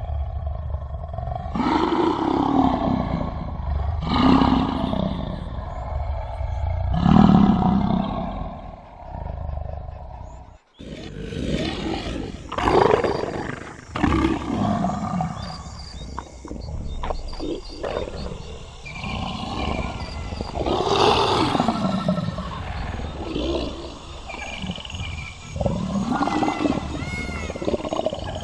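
Tiger roaring and growling in a string of repeated calls. A short break comes about ten seconds in, then a different recording follows with more growls and roars.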